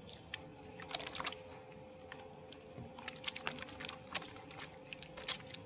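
Small electric water pump of a camper running with a steady faint hum, just switched on and waiting for water to come through, with irregular light clicks and taps over it.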